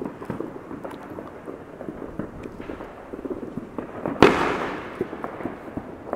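Fireworks going off: a continuous scatter of distant pops and crackles, with one loud bang about four seconds in that trails off briefly.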